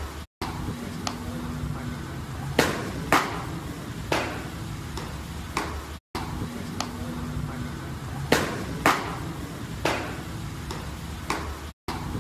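A pitched baseball smacking into a catcher's mitt: two sharp pops about half a second apart, heard twice as the same short clip repeats, with the sound cutting out briefly between repeats.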